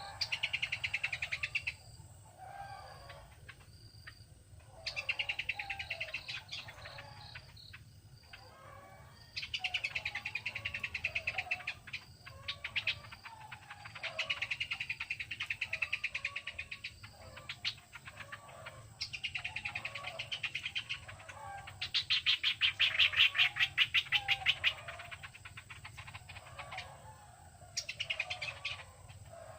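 Songbirds calling in repeated bursts of rapid chattering trills, each lasting a couple of seconds, with short pauses between. The loudest burst comes a little past two-thirds of the way through.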